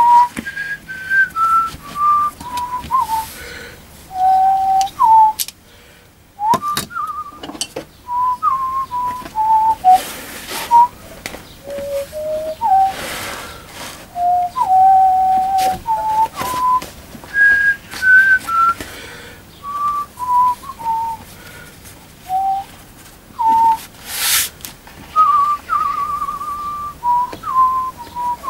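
A person whistling a tune, clear single notes stepping up and down with a wavering note near the end. Several brief scraping swishes of a knife cutting leather and leather being handled come in between, the loudest near the end.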